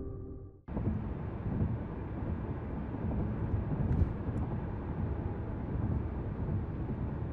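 Music fades out, and after a brief gap a steady low rumbling noise cuts in abruptly, with a faint click about four seconds in.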